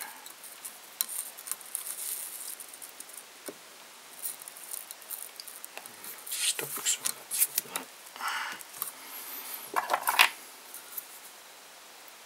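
Fingers handling a tube fly and its tying thread at the vise: light scratching, rustling and scattered small clicks, busier and louder in the second half.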